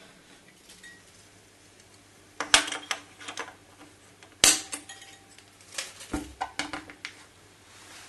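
Sharp clicks and knocks of small hard plastic parts being handled and pressed into place, in short clusters with one sharper knock about halfway through.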